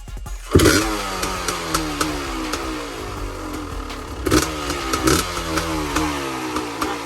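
Kawasaki KX500's single-cylinder two-stroke engine catching on a cold start about half a second in, its revs falling away as it settles. The throttle is blipped twice near the middle, each rev rising and dropping back.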